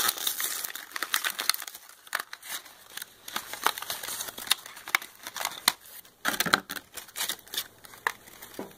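Small cardboard box being torn open by hand: a paper seal peeled off and thin card flaps ripped and folded back, with irregular crinkling and crackling, busiest about six seconds in.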